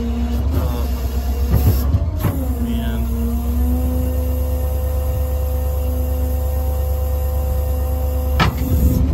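Rollback tow truck running: a steady low rumble with a mechanical whine on top. The whine dips in pitch about two seconds in, and there are short knocks near the start and near the end.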